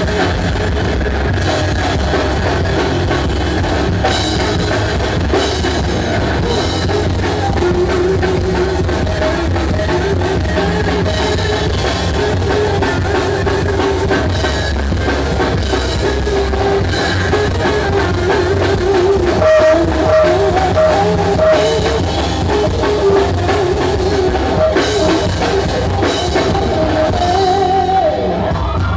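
Live rock band playing loud and without a break: electric guitar over a full drum kit.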